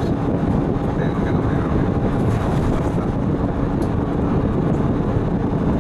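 Steady engine and road noise heard inside a transit bus cruising on a highway, with a faint constant hum under the rumble.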